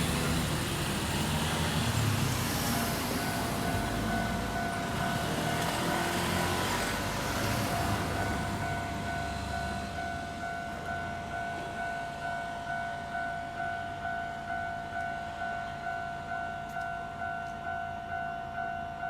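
A Kintetsu Osaka Line train runs over a level crossing, its noise dying away about eight seconds in. Under it and then alone, the crossing's warning bell rings in a steady, repeating electronic ding.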